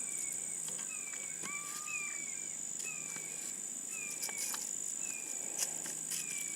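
Outdoor insect chorus, a steady high-pitched drone, with a bird repeating short, falling whistled notes about once a second.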